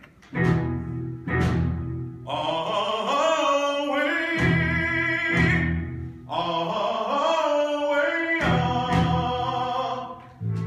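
A man singing an operatic call in two long, wavering phrases, alternating with low sustained accompaniment chords.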